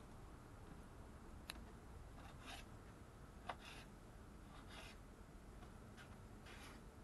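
Knife cutting raw chicken breast into small cubes on a cutting board: faint soft slicing strokes, with two sharp taps of the blade on the board, the louder about three and a half seconds in.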